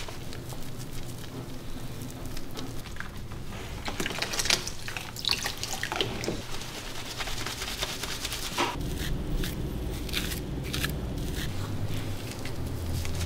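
Water splashing and dripping in a plastic tub as soapy wet cat fur is lathered and squeezed by hand, with irregular small splashes.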